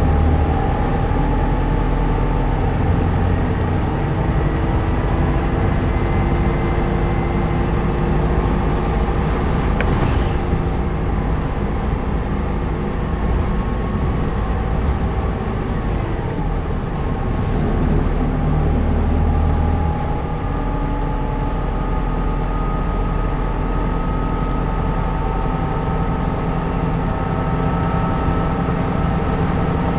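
Interior running sound of a city route bus under way: engine and drivetrain running with road noise, their whining tones sliding slowly up and down in pitch as the bus changes speed. A single sharp click about ten seconds in.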